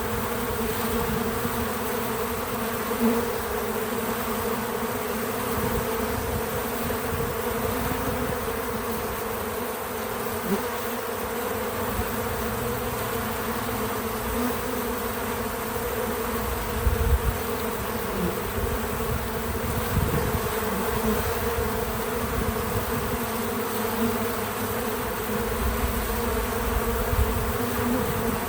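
Many bees buzzing steadily around a feeder, a continuous droning hum with a few brief louder moments as bees fly close.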